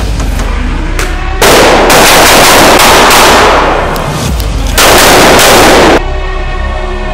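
Two long bursts of rapid automatic rifle fire: the first starts about a second and a half in and lasts about two and a half seconds, and the second, shorter one comes about a second later. Both are very loud, over background music.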